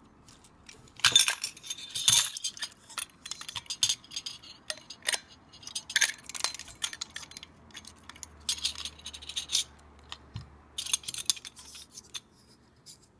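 Hard-drive platter stack being taken apart by hand: irregular metallic clinks and clicks as the platter clamp, spacers and platters are lifted off the spindle and set down. The loudest clinks come about one and two seconds in.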